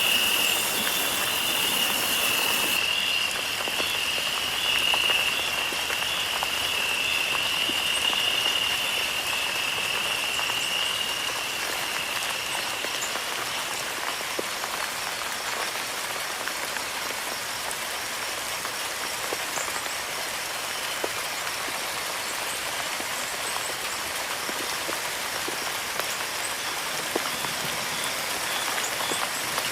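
Rain falling and pattering on surfaces: an even hiss with scattered drop ticks. A high, steady pulsing tone sits over it for the first dozen seconds and fades out about 13 seconds in.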